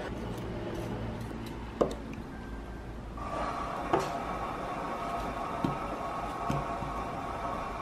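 Quiet kitchen handling sounds: a few separate light knocks and clicks as frozen yogurt is squeezed from a paper cone into a bowl and then a knife slices strawberries over a ceramic bowl. A faint steady hum comes in about three seconds in.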